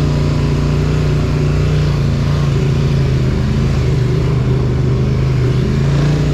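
ATV engine running at a steady trail speed as the quad rides along a dirt track, its pitch barely changing, with a rushing noise of movement over it.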